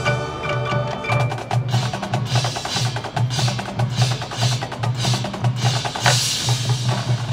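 High school marching band playing a percussion-heavy passage: rapid strikes from the drumline and the front ensemble's mallet keyboards over low notes pulsing in a steady beat, with a crash about six seconds in.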